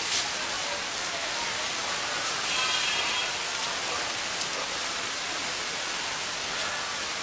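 Stone roller rubbed back and forth on a flat grinding stone (shil-pata), grinding wet spices into paste: a steady gritty scraping hiss.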